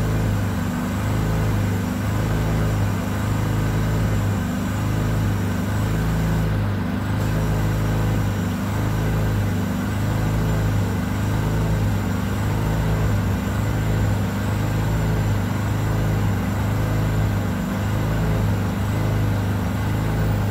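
Machine running steadily: a loud low hum that swells and dips about once a second.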